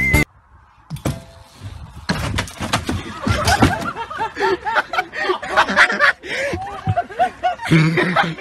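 Several people laughing loudly as a homemade wooden half-pipe ramp breaks apart under a rider, with sharp wooden knocks and clatter mixed into the laughter.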